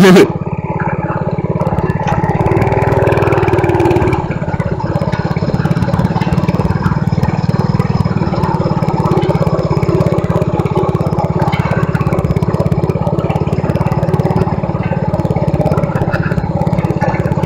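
Mini bike's Predator 212cc single-cylinder four-stroke engine running under steady throttle while riding, with a slight easing off about four seconds in.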